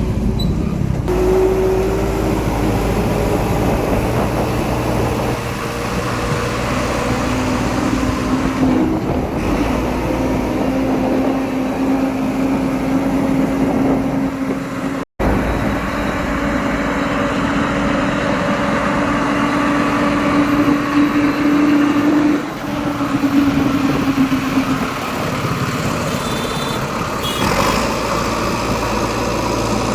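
Heavy diesel engine running steadily, its pitch drifting slowly up and down, with a momentary drop-out about halfway through.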